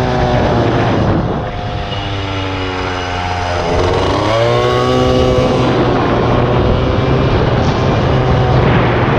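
Air-cooled 70 cc Polini minimotard engine being ridden hard. Its revs fall and it quietens for a couple of seconds, then about four seconds in the revs climb sharply as the throttle opens, and it runs on at high revs.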